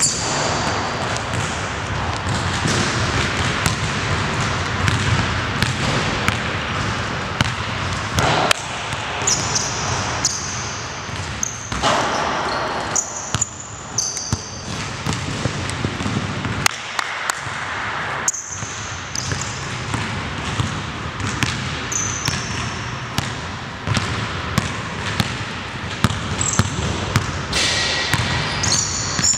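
A basketball dribbled and bouncing on a hardwood gym floor in irregular bounces. Short, high sneaker squeaks come every few seconds over a steady background hiss.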